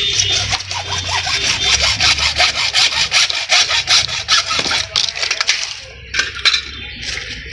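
Hacksaw cutting through a CPVC plastic pipe after it has been measured: rapid, even back-and-forth strokes that stop about six seconds in, followed by a couple of light knocks.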